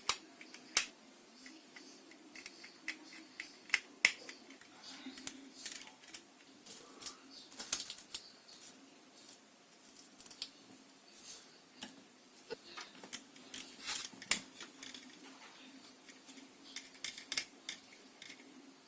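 Irregular light clicks and taps of small tools and parts being handled during a drone motor replacement, a few sharper knocks among them, over a faint steady hum.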